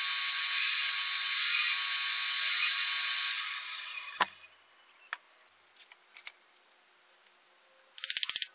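Band saw running with a steady high whine, switched off about three seconds in and spinning down to quiet over the next second, with a sharp click just after. Near the end comes a short, very fast rattle of taps.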